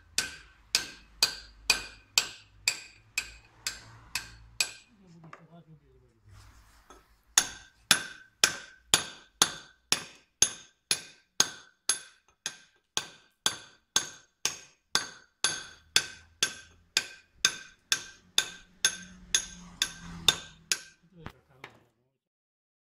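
Stonemason's hammer striking a steel hand chisel to dress the edge of a stone block, about two ringing metal-on-metal blows a second. The blows pause for a couple of seconds about five seconds in, then resume and stop shortly before the end.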